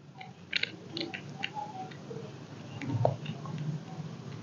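Faint scattered clicks and small handling noises of hands fitting the star drag onto an Abu Garcia Ambassadeur baitcasting reel, with one louder knock about three seconds in.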